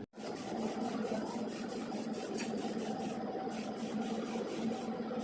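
A machine running steadily, with a constant low hum and a faint, fast, regular ticking.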